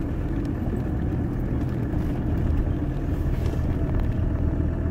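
Car engine running steadily at low speed, heard from inside the cabin while the car reverses.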